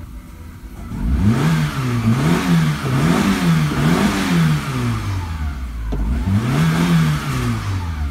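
Suzuki Baleno's 1.6-litre G16B inline-four petrol engine revved repeatedly with the car standing, heard from inside the cabin: idling at first, then four quick blips up to about 5,000 rpm, a drop back toward idle, and one more rev near the end.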